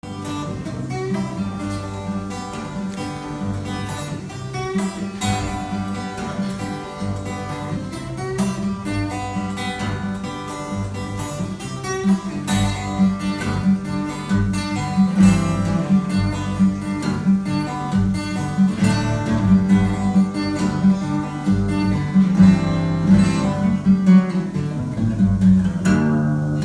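Acoustic guitar being strummed and picked, with no singing, growing louder about halfway through.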